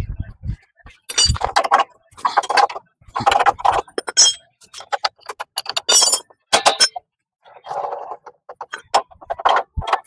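Metal hand tools and parts clinking and knocking together, a string of short, irregular clinks with a pause of about a second just past the middle.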